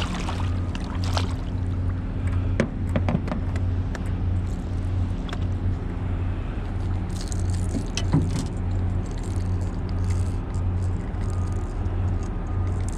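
Boat motor running steadily with an even low hum, with scattered knocks and some water splashing.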